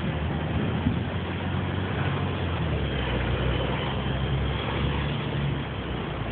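Street traffic: a motor vehicle's engine running with a steady low hum over a constant hiss of road noise.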